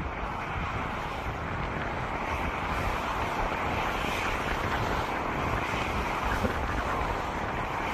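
Distant jet engine noise of an Airbus A321neo with Pratt & Whitney PW1100G geared turbofans on final approach: a steady rushing hiss that swells a little in the middle, over low wind rumble on the microphone.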